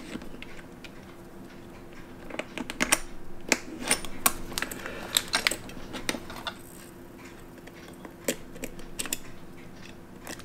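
Light metallic clicks and taps as the screw-down caseback of a stainless steel watch is unscrewed and lifted off and the case is handled, the clicks thickest in the middle and coming again later, over a faint steady hum.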